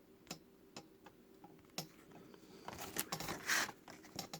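Trading cards being handled and flipped through: scattered light taps and clicks as cards are set down, with a longer run of card-on-card sliding and rustling about three seconds in.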